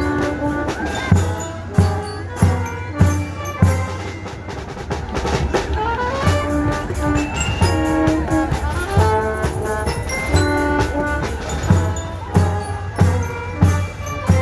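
A school band playing: brass melody with low drum strokes keeping a steady beat.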